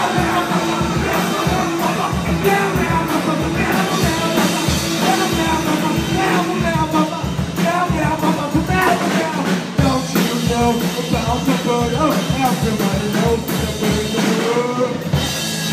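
Rock band playing, with drums and singing over a steady beat.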